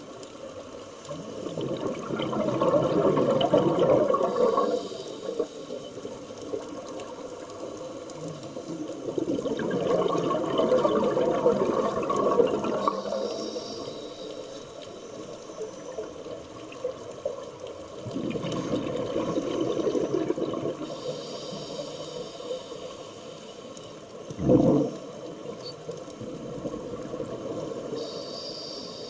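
Scuba diver breathing through a regulator underwater: three long bubbling exhalations of a few seconds each, each followed by a short higher hiss. A sharp knock about 24 seconds in is the loudest moment.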